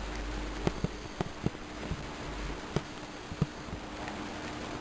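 A sheet of paper being handled, giving a few scattered crinkles and ticks over a steady low hiss.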